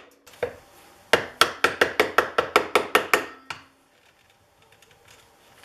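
A flat-tip screwdriver being tapped with a hammer, wedging it under the lateral adjustment lever of a Stanley Bedrock plane frog to pry the lever off its pivot pin. One sharp tap, then a quick run of about a dozen taps at about five a second, which stop about three and a half seconds in.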